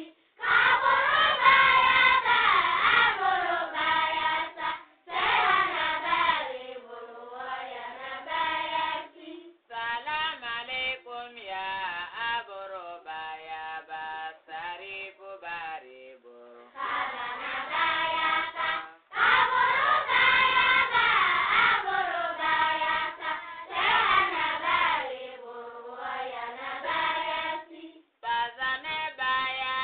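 Islamic devotional chant: singing in melodic phrases a few seconds long, with short breaks between them.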